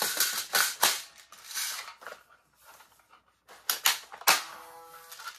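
Plastic clicks and rattles of a toy blaster rifle being reloaded, its magazine handled and pushed into place. There are quick clicks about three and a half seconds in, then a sharp snap just after four seconds, followed by a short ringing tone.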